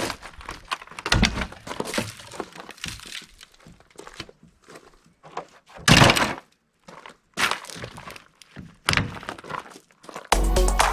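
Cracking, breaking and thuds of material being torn apart in RV interior demolition, with several separate loud crashes in the second half. Music starts near the end.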